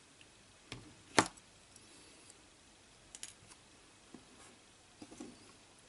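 A few short clicks and small taps as spring alligator test clips are unclipped from a small diode's wire leads and handled. The loudest click comes about a second in.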